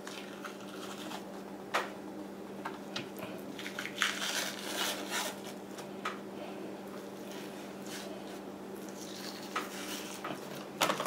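Hands peeling the membrane off a slab of pork spare ribs with a paper towel: soft squishing, tearing and paper rustling, with scattered light clicks against the metal sheet pan, over a steady low hum.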